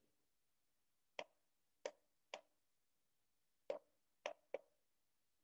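Six computer mouse button clicks, unevenly spaced, the last two close together.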